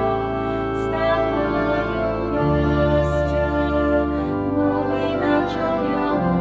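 Instrumental interlude of a slow hymn played by organ, flute, harp and violin together: long held chords, with the bass note changing about every two seconds.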